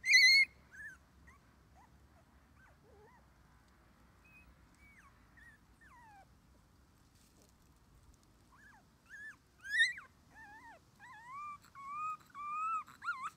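Three-week-old Shiba Inu puppy squealing: one loud, high squeal at the start, then faint scattered whimpers, building near the end into a run of high, wavering cries.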